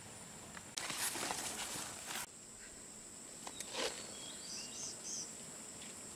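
Steady high-pitched insect drone, with rustling of leaves and brush about a second in and again briefly near the middle, and a few short bird chirps a little after.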